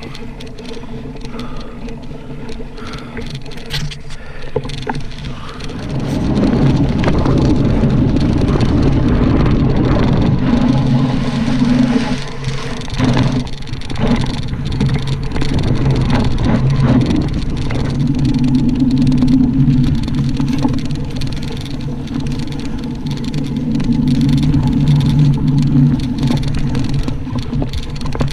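Mountain bike riding fast on a dirt trail: wind rushing over the camera microphone and the tyres rumbling over the dirt. It grows much louder about six seconds in.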